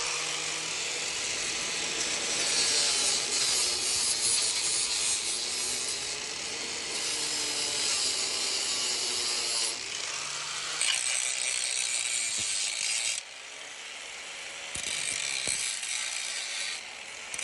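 Angle grinder grinding the steel edge of a cut notch in a Jeep frame rail, in several passes: the hissing grind swells and eases as the disc bites and lifts off, dropping back for a couple of seconds about two-thirds of the way through.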